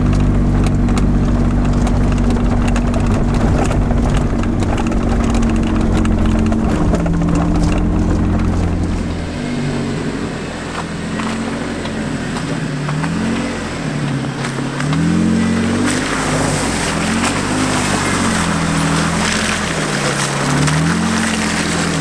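Jeep Wrangler engine pulling a loaded camper trailer along a muddy trail: a steady drone heard inside the cab at first. About halfway through, the engine rises and falls in pitch again and again as the throttle works through the mud. From about two-thirds of the way in, a rough splashing, squelching noise of tyres in mud and puddles grows louder as the Jeep comes close.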